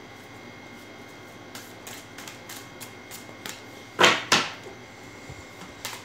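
A deck of tarot cards being shuffled by hand, with soft card clicks and two sharp slaps of the cards close together about four seconds in.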